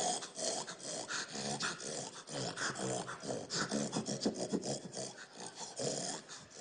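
A person imitating a pig with their voice: a rapid run of short grunts, with brief pauses about two seconds in and near the end.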